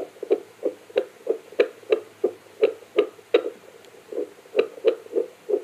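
Bestman BF-515 fetal doppler's loudspeaker giving out a rhythmic heartbeat sound, about three beats a second, with a brief gap about two-thirds of the way through. It is the heart signal the device is picking up and counting.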